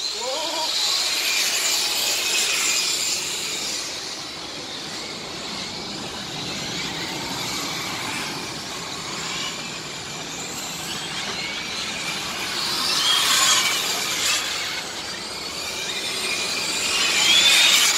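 Radio-controlled model racing trucks lapping an asphalt track, their small motors making a high-pitched whine. It swells twice near the end, with the pitch bending as cars pass close by.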